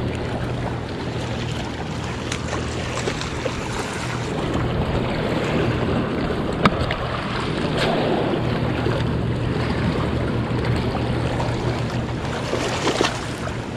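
Steady rush of fast-flowing tailwater below a dam, with wind on the microphone and a low steady hum underneath. A few handling knocks, the sharpest about halfway through.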